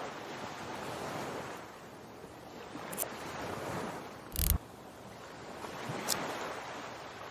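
Ocean surf washing onto a sandy beach, swelling and fading in slow waves. A few short sharp knocks cut through it, the loudest about four and a half seconds in.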